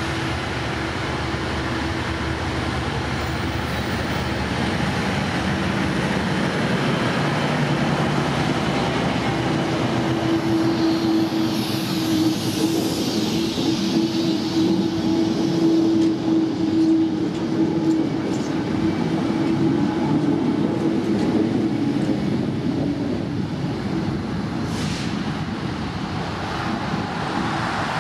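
Diesel switcher locomotive hauling a string of locomotives slowly past, with a steady engine drone and wheels rolling on the rails; the drone is loudest about halfway through as the train goes by.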